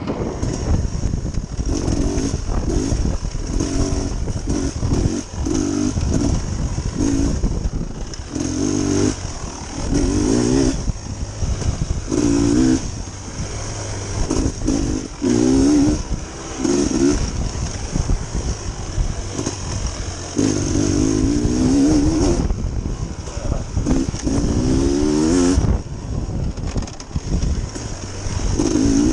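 Dirt bike engine revving up and down again and again, its pitch climbing in short surges each time the throttle opens, over a constant low rumble.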